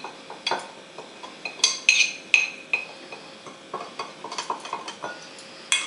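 A spoon clinking and scraping against a bowl and plate while spice powder is spooned out: a string of irregular taps, several of them ringing briefly.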